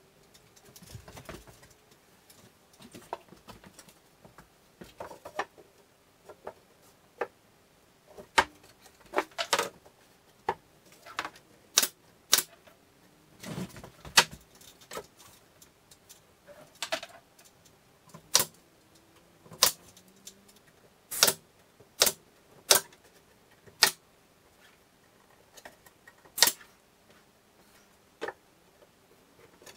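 Pneumatic nail gun firing into a plywood cabinet box: a string of sharp, irregular shots about a second apart, beginning about a quarter of the way in, with softer handling knocks before them.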